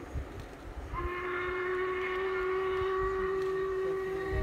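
Steam locomotive whistle on the Jacobite steam train blowing one long steady note, starting about a second in, over a low rumble.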